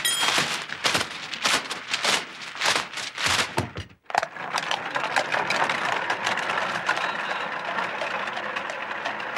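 Sheets of paper flaring up in flames, with a dense run of sharp crackles and paper rustling. About four seconds in this cuts to the steady rolling noise of a horse-drawn hansom cab on a street, with faint hoof clicks.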